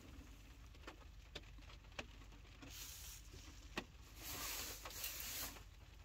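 Faint scattered taps and light rubbing as a hand works a key-programming tablet inside a car, with a few single clicks and two brief stretches of rustling.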